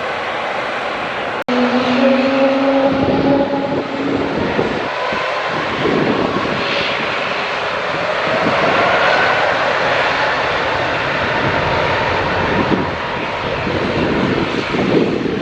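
Jet airliner engines passing close by, a loud rush with whining tones that slowly shift in pitch, mixed with gusty wind buffeting the microphone.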